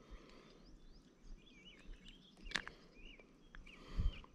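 Faint outdoor ambience with scattered small bird chirps, a sharp click about two and a half seconds in, and a few low thuds near the end.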